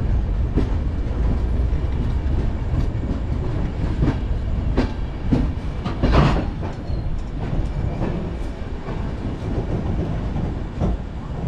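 Vikramshila Express sleeper coach running along the track, heard from its open door. A steady low rumble carries irregular wheel clacks over rail joints, the loudest about six seconds in.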